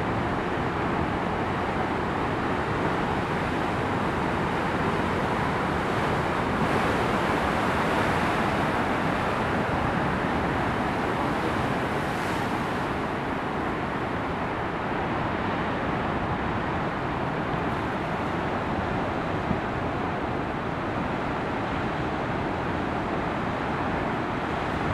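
Heavy storm surf breaking into a rocky cove: a steady rush of noise that swells briefly twice.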